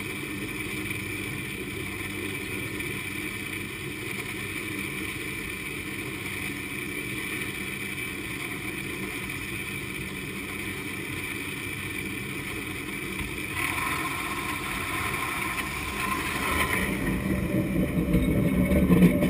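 San Francisco cable car haul cable running through its underground conduit and over its pulleys: a steady mechanical rumble with a constant high whine. Extra tones join about two-thirds of the way in, and the sound grows louder near the end.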